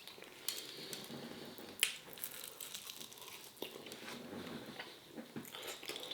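A person biting into and chewing a chicken wing: irregular small clicks and crunches, with one sharper click about two seconds in.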